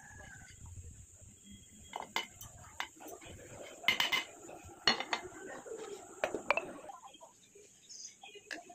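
Whole dry spices rattling and clinking into a steel mixer-grinder jar as they are tipped and scraped off a paper plate, with a string of sharp clinks and knocks of the jar and plate from about two to seven seconds in.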